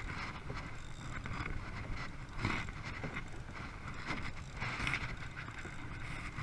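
Choppy sea water splashing and slapping against a kayak, with wind on the microphone. There are a couple of louder splashes about two and a half and five seconds in.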